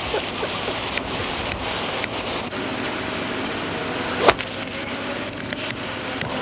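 Steady outdoor hiss with a few faint clicks, and one sharp crack about four seconds in: a golf iron striking the ball.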